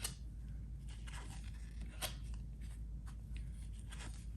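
Cardboard trading cards being slid and flipped against each other in the hand: soft scraping with a few sharp snaps, the clearest at the start and about two seconds in, over a steady low hum.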